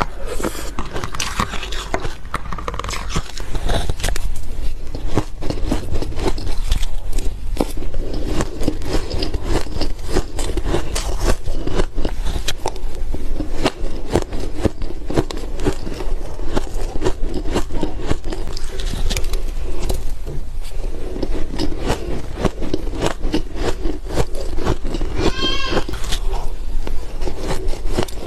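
Close-miked crunching of ice and powdery freezer frost being bitten and chewed: a dense run of irregular crisp cracks and crackles. About 25 seconds in comes a brief wavering squeak.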